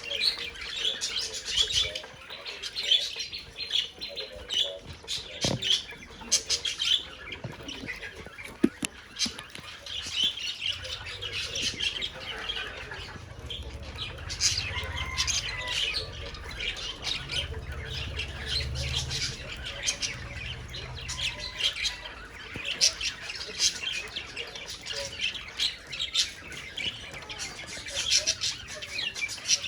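Budgerigars chattering continuously in quick chirps, warbles and squawks.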